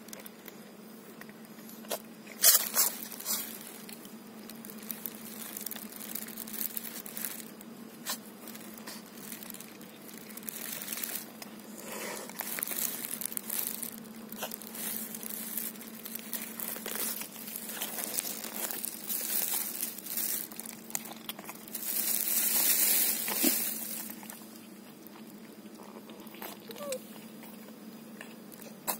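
Someone eating crunchy food: irregular crunches, clicks and crinkling, with a louder hissing burst lasting about two seconds near the 22-second mark, over a steady low hum.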